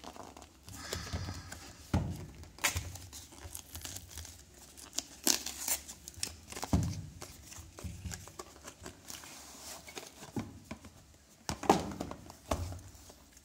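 A cardboard phone box being opened by hand: the paper seal label tearing, card and paper rustling and scraping, and the box being pulled open, with irregular taps and a sharp snap about twelve seconds in.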